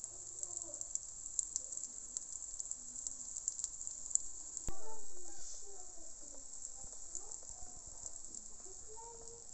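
Pancake batter frying in hot fat in a pan: a steady high sizzle with fine crackling. A single sharp click about halfway through.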